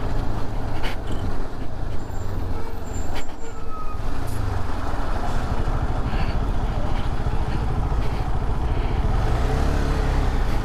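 Road noise from riding a motorcycle in traffic: a steady low rumble of engine and wind, with other vehicles around.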